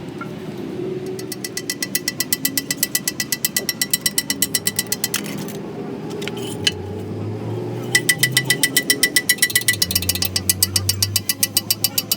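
Rapid metallic hammering at about ten strikes a second with a ringing tone, in two bursts of a few seconds each. The second burst is louder and comes with a low hum underneath.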